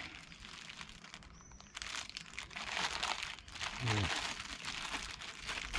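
Packaging crinkling as it is handled, a dense crackle that starts about two seconds in and continues.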